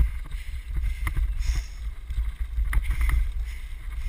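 Wind rumbling on a helmet-mounted camera's microphone during a dryland dog-sled run, with irregular knocks and rattles from the wheeled rig rolling over the trail.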